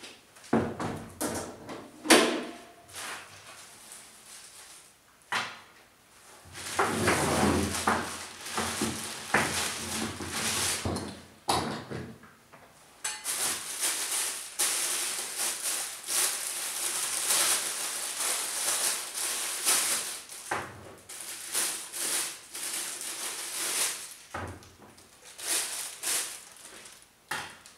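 Clear plastic packaging bags crinkling and rustling as welding cables and a ground clamp are unwrapped by hand. There are a couple of sharp knocks in the first two seconds as the welder unit is set down on the steel worktable.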